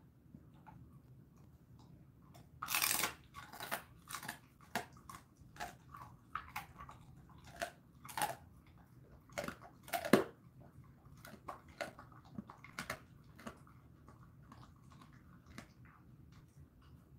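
Jindo dog chewing a dried chicken foot treat: irregular crunches of the bone and skin, the loudest about three seconds in and about ten seconds in, thinning out near the end.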